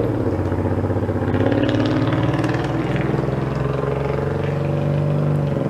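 A Honda's engine and exhaust rumbling: an aggressive, deep, steady pulsing note whose pitch drifts slowly as it drives.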